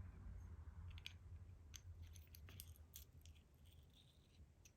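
Faint, scattered small metal clicks and ticks from handling a Sargent mortise lock cylinder that is being taken apart, with its back cap just removed. The clicks are thickest in the first three seconds and thin out after that.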